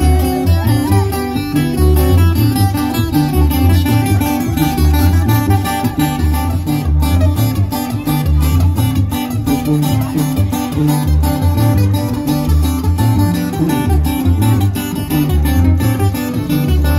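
Live regional Mexican band music: a Takamine twelve-string acoustic guitar (docerola) strummed and picked over a pulsing tuba bass line.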